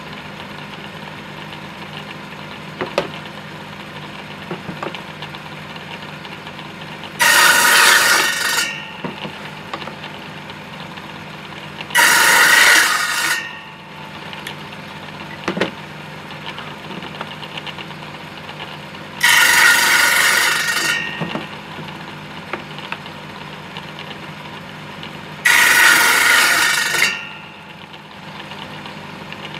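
Table saw running steadily, its circular blade cutting through wooden door timber four times to cut tenons, each cut about a second and a half long. Light wooden knocks between the cuts as the pieces are handled on the table.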